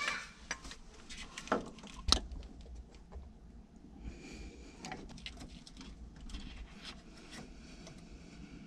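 Hands handling parts in an engine bay while refitting a thermostat housing: a few sharp knocks and clicks in the first couple of seconds, the loudest about two seconds in, then faint rustling and handling noise.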